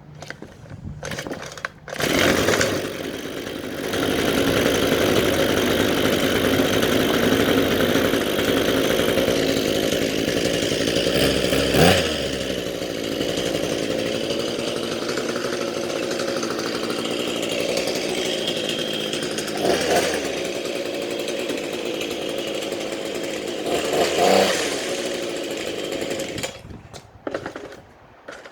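Small two-stroke engine of a string trimmer (weed eater) or chainsaw running at speed, with a few brief revs. It starts about two seconds in and dies down near the end with a few sputters.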